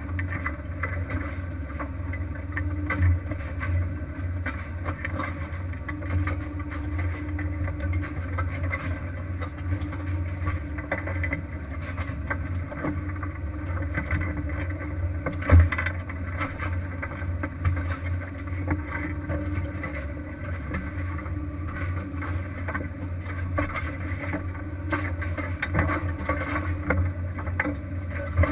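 A fishing boat's engine running with a steady low drone, with irregular clatter and knocks over it; one sharp knock about halfway through.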